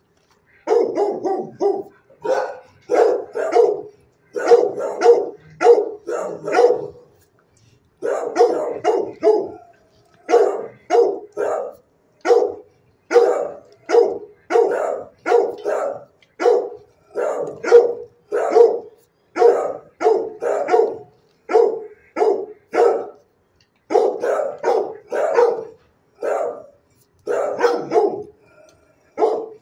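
A dog in a shelter kennel barking over and over, about two barks a second in long runs with a few short breaks.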